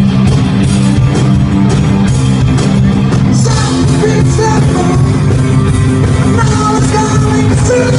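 Rock band playing with guitars and singing.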